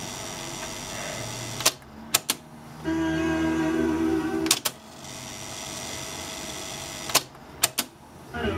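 Dual C828 cassette deck changing transport modes. Sharp clicks from its buttons and mechanism come in pairs and groups, with a steady whir of tape winding back between them. A short stretch of music plays from the tape in the middle.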